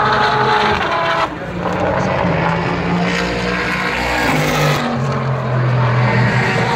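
IMSA race cars' engines running hard on the circuit, the engine note shifting in pitch in steps as they change gear. The sound drops abruptly about a second in.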